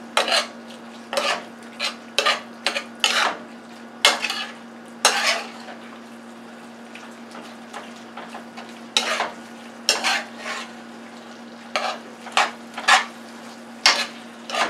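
A metal utensil stirring and scraping steak, peppers and onions in gravy around a metal skillet, mixing in freshly added water. It comes in quick strokes, one to three a second, with a pause of about three seconds in the middle, over a faint steady low hum.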